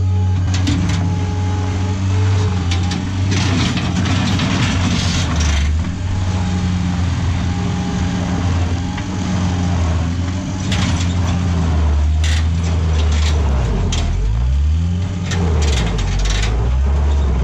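New Holland LX565 skid steer loader's engine running under load while it drags a pickup truck out on a chain. The engine pitch rises and falls with the throttle and sweeps up and down near the end, with scattered clanks and rattles.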